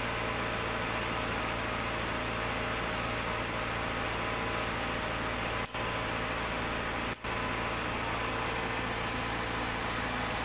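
Vehicle engine idling steadily with a low, even drone.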